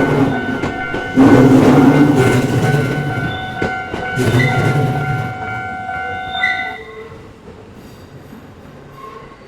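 An electric JR Togane Line train at a level crossing, sounding two horn blasts about a second long each, with wheels clicking over the rail joints. The crossing's warning tones ring steadily and cut off about seven seconds in, after which the sound dies down.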